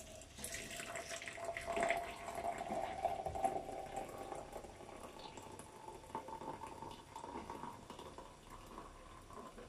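Hot water poured in a steady stream from an electric kettle into a glass French press. The pouring tone rises slowly as the press fills.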